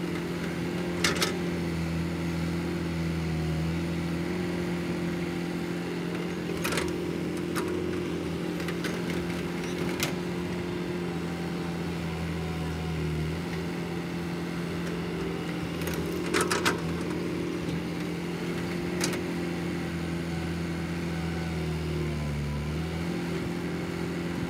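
Caterpillar hydraulic excavator's diesel engine running steadily, its pitch dipping briefly now and then as the hydraulics take load. A few short, sharp knocks stand out above the engine as it loads dirt into a dump truck.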